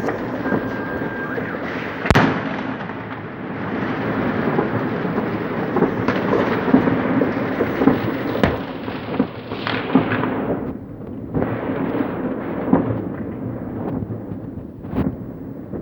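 New Year fireworks going off all around: a dense, continuous rumble of many overlapping bangs and crackles, with a sharp loud bang about two seconds in. After about eleven seconds it thins into separate bangs.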